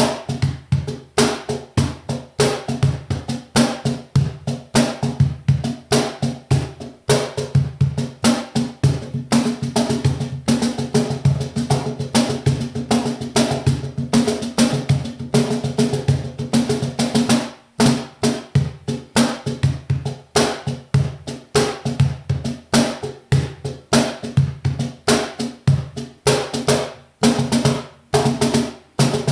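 KEO Percussion standard cajon played by hand in a fast, continuous groove, mixing deep bass tones with sharper slaps that set its internal snare wires buzzing. There is a brief break about 17 seconds in before the playing picks up again.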